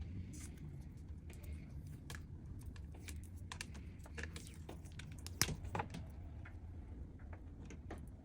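Scattered light clicks and taps, with one sharper knock about five and a half seconds in, over a low steady hum.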